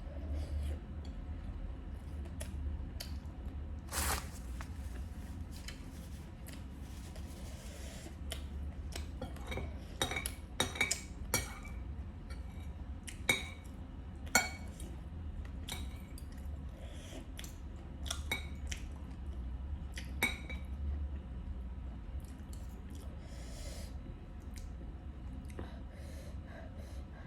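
Eating utensils clinking and tapping against a bowl and plate. Scattered light clicks run throughout, with a run of sharp, ringing clinks about ten to fourteen seconds in and another about twenty seconds in, over a steady low hum.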